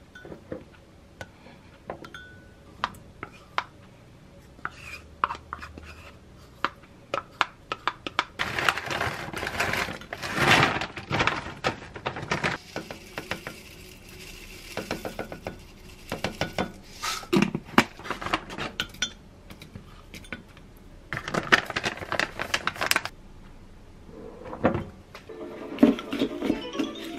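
Yogurt bowl being made in a glass mug: many small clinks and taps of a wooden spoon against the glass, with longer stretches of rustling as frozen berries and granola are tipped in, and stirring near the end.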